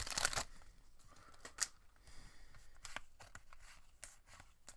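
A Pokémon booster pack's foil wrapper torn open with a short crinkling rip right at the start, then quiet handling of the cards, sliding against each other, with a few light flicks.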